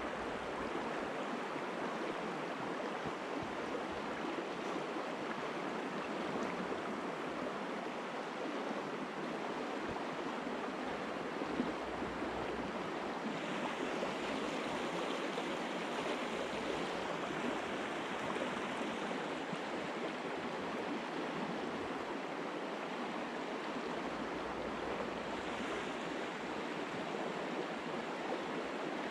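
River water rushing over a shallow riffle: a steady, even rush of running water.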